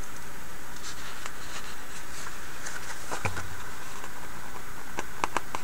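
Pages of a large paper catalogue being handled and turned: soft paper rustles and a few light ticks and taps, over a steady background hiss.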